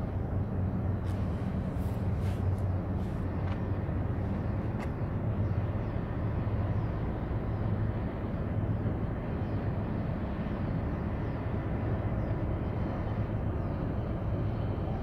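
Low, steady engine drone of a Panamax bulk carrier under way, over even harbour background noise, with a few faint ticks in the first five seconds.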